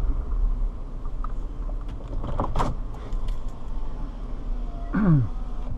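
Steady low rumble of a car, with a few sharp clicks about two and a half seconds in and a short sound falling in pitch near the end.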